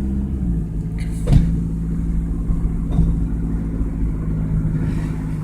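1995 Toyota Camry driving, heard from inside the cabin as a steady low engine and road drone, with one sharp knock about a second in and two fainter ticks.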